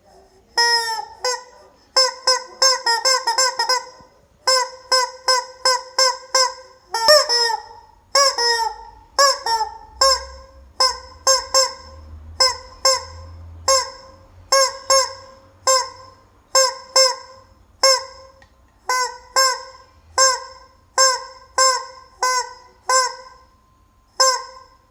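Rubber chicken squeezed over and over, giving loud honking squawks about one a second, with quick runs of squawks in the first few seconds.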